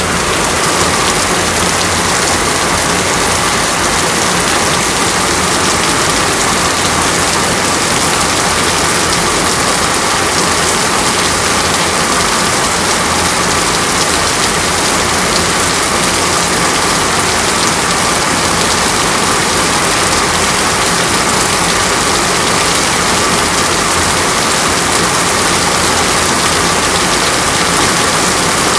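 Heavy rain falling steadily, a dense, even hiss with no letup, with a faint steady hum under it.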